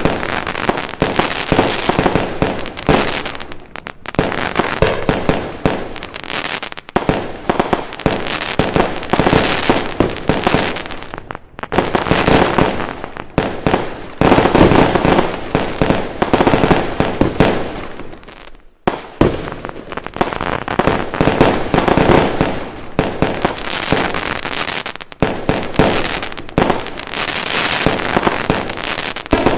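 Fireworks going off in a dense, continuous barrage of bangs and crackling, with a few brief lulls.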